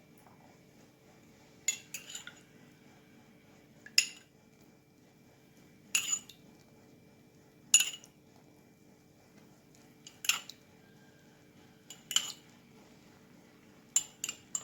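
A metal utensil clinking sharply against metal kitchenware, about every two seconds, some strikes doubled.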